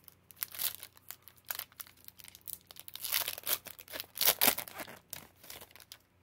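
Foil wrapper of a Panini 2020 Chronicles baseball card pack being torn open by hand and crinkling, loudest in bursts about three and four seconds in, then quieter rustling as the cards are slid out.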